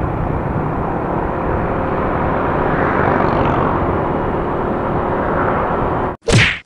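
Steady rushing wind and engine drone of a Yamaha NMAX scooter being ridden. Near the end the sound cuts off abruptly, and a brief loud burst follows.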